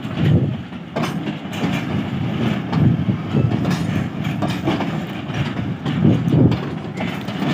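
A freight rake of bogie oil tank wagons rolling past on the rails, a low rumble broken by repeated clacks as the wheels cross the rail joints.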